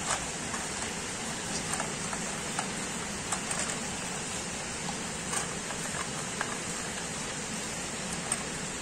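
Light plastic clicks and taps as a toy train carriage is handled and coupled on plastic track, scattered over a steady hiss.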